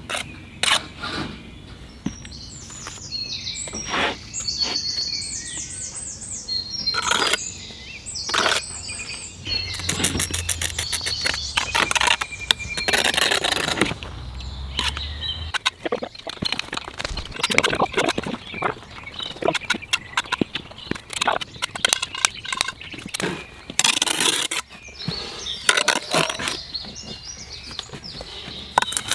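Bricklaying work: repeated sharp taps and scrapes of a steel trowel on bricks and mortar, with a bird chirping in the background during the first few seconds and again near the end.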